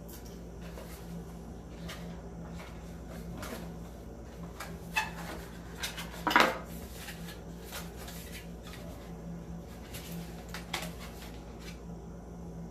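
Small hard plastic parts of a doorbell kit being handled: scattered clicks and clacks, with the loudest cluster about five to six and a half seconds in, over a steady low hum.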